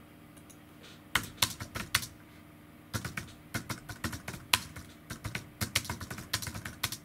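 Typing on a computer keyboard: a run of key clicks from about a second in, a short pause, then steadier typing.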